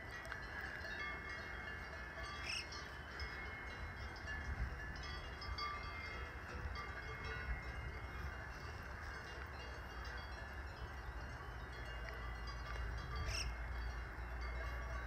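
Several bells ringing irregularly, many high overlapping tones, over a low steady rumble.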